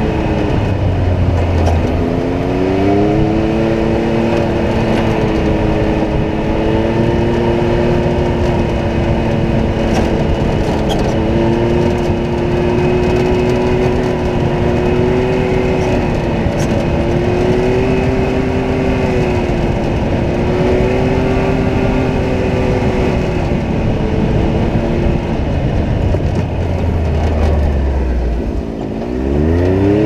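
Can-Am side-by-side's engine running under load on a dirt trail, its pitch dropping and climbing back about a second in, then holding fairly steady with small swells. Near the end the revs fall away with a low rumble and then rise sharply as the throttle is opened again.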